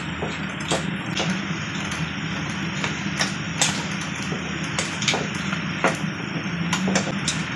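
Water boiling in a pan while metal tongs turn blanching water spinach, with a few sharp clicks of the tongs against the pan.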